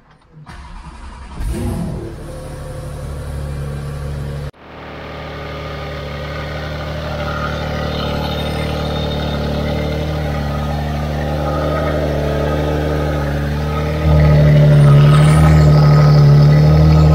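Porsche 992's flat-six cold-starting through an IPE full exhaust system. It catches with a loud flare about a second and a half in, then settles into a steady idle. The sound breaks off abruptly about four and a half seconds in, the idle comes back and builds slowly, and it steps up louder near the end.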